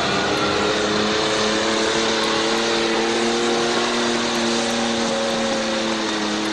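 Pulling tractor's engine running flat out under heavy load while it drags a weight-transfer sled, a loud, steady, held note.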